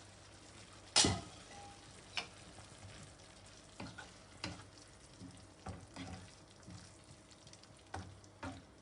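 A spoon stirring prawn vindaloo in a cooking pan: one sharp clack about a second in, then lighter knocks and scrapes of the spoon against the pan every second or so, over faint sizzling.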